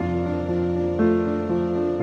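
Background music of sustained notes that change every second or so.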